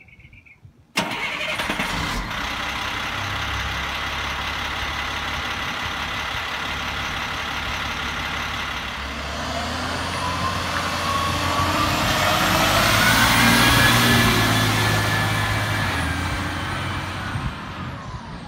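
International 4300 dump truck's DT466 inline-six turbo diesel running, coming in suddenly about a second in. From about halfway the truck pulls away and accelerates with a rising whine, loudest a few seconds later as it goes past, then fading as it drives off, the whine dropping in pitch near the end.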